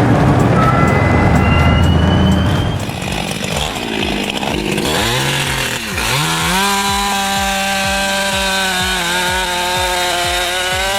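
A loud, low noisy rumble for the first few seconds, then a two-stroke chainsaw revs up about five seconds in and runs at steady high revs while cutting a tree.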